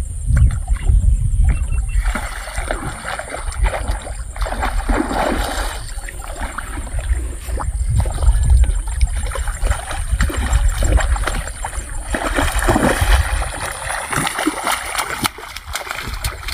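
A hooked rohu splashing and thrashing at the surface of shallow water as it is played on a rod and hauled through the shallows to the bank, mixed with sloshing from wading.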